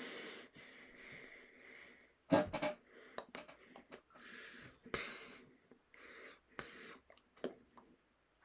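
A man's breathy hissing, like heavy breathing or wheezing, close to the microphone, in patches with short gaps. A quick cluster of sharp clicks comes about two and a half seconds in, the loudest part.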